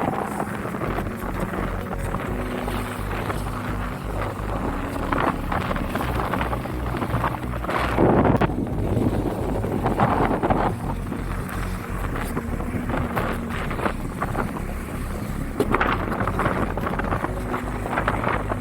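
Strong wind buffeting the microphone: a loud, steady rumble with louder rushes a few times.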